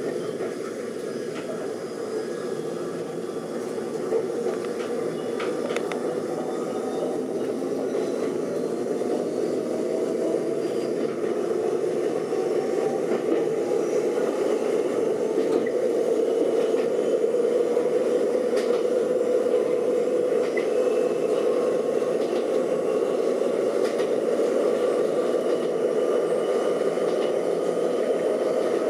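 Kobe Electric Railway electric train running, heard from inside the front car: the traction motors whine with a pitch that rises slowly as the train picks up speed, over the steady rumble of the wheels on the track. A couple of sharp clicks come in the first six seconds.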